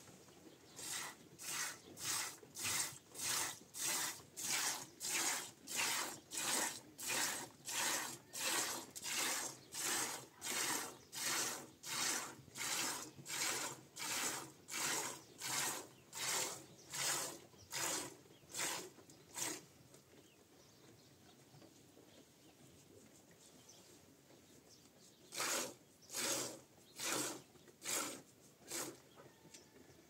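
A goat being milked by hand: milk squirting into a plastic bucket in rhythmic strokes, about two a second. The squirting stops about two-thirds of the way through and starts again for a few seconds near the end.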